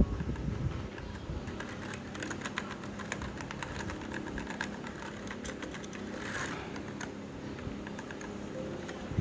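Typing on an Azio MK-MAC-U01 mechanical keyboard: a run of quick key clicks over a low rumble, with a low thump at the start and another at the end.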